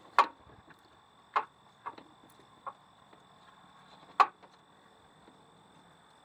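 A few sharp clicks and knocks from handling wiring-harness connectors and engine parts. Two loud ones come near the start and about four seconds in, with fainter taps between.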